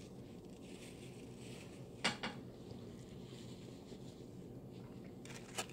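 Quiet room tone broken by a few short clicks and knocks of handling at a dinner table: a pair about two seconds in, and two more near the end.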